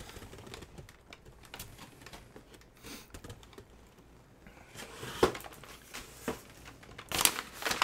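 Packaging being handled: a cardboard shipping box and a paper-wrapped package rustling, with scattered light clicks and taps that get busier about five seconds in.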